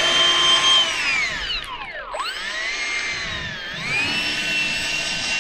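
Freewing F-15's 90mm nine-bladed electric ducted fans whining at high throttle. About two seconds in they spool down sharply, then spool back up to a steady high whine near four seconds in: a throttle run-up before takeoff.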